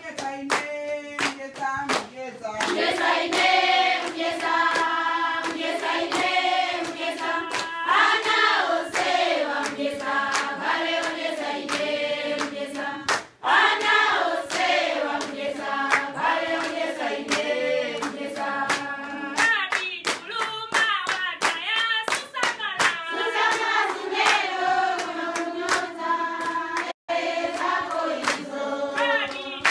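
A group of women singing together in unison, with steady hand clapping keeping time. The sound breaks off briefly twice, about 13 seconds in and near the end.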